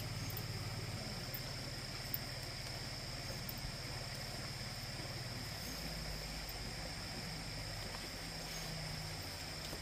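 Steady outdoor ambience of chirring insects, a high even tone that does not let up, over a low steady hum that shifts slightly about halfway through.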